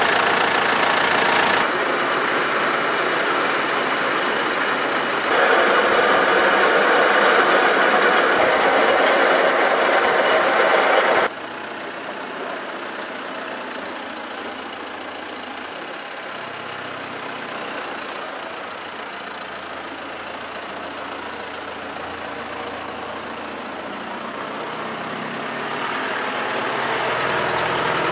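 John Deere 6105R tractor's four-cylinder diesel engine idling steadily. Loud and close at first, it drops away abruptly about 11 seconds in and grows louder again near the end.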